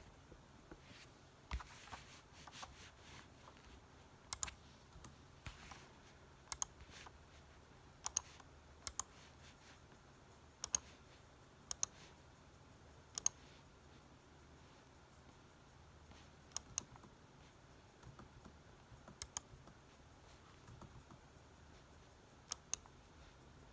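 Key presses and clicks on a laptop, sharp and separate, every second or two, many coming in quick pairs, over faint room hiss.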